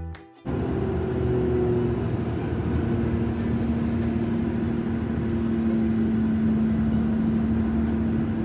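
Car driving at a steady speed: an even rush of road and engine noise with a low hum, starting about half a second in.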